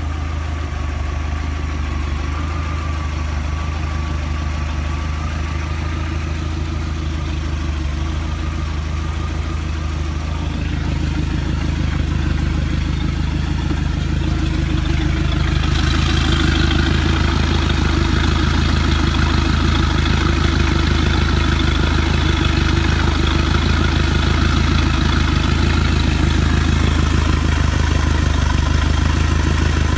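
MerCruiser 3.0 four-cylinder sterndrive engine idling steadily. From about halfway the splash and hiss of water pouring out of the outdrive grows louder over the engine.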